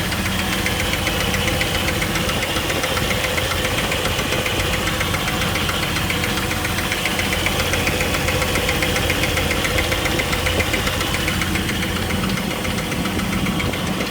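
A 2000 Jeep Wrangler TJ's 4.0-litre inline-six idling with a steady, rapid ticking/knocking. The tick appeared after the engine overheated and lost all its coolant. It seems loudest under the engine, and the owner can't yet tell its cause.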